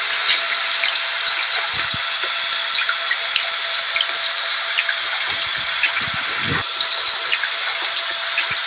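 Steady vacuum cleaner motor noise, an even hiss with a faint constant whine, mixed with falling rain that adds small scattered ticks of drops.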